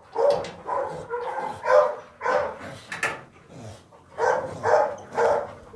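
Dogs barking: about a dozen short barks in quick succession, with a brief lull near the middle.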